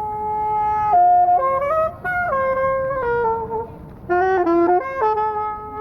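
Solo saxophone playing a slow melody of long held notes, with a few quicker runs of notes about four seconds in.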